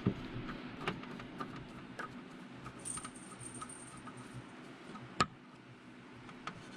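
Faint metallic ticks and clicks of a screwdriver turning a small screw in a chainsaw's Walbro carburetor, with one sharper click about five seconds in.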